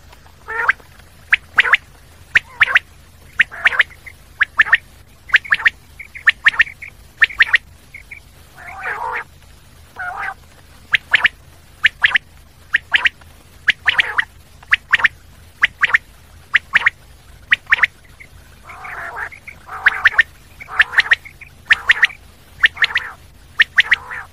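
Common quail calling over and over: short, sharp high calls, often in quick pairs or threes, about one group a second, with a few lower, rougher notes mixed in.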